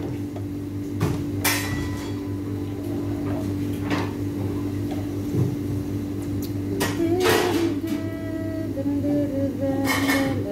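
Oil sizzling as sesame-coated binangkal dough balls deep-fry in a wide pan, with a slotted spoon knocking against the pan four times as they are turned. A steady electrical hum runs underneath.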